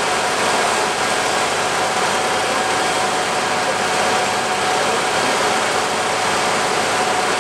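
Fire trucks running steadily at a fire, with the continuous rushing hiss of water spraying from hoses over the engines and a faint steady whine.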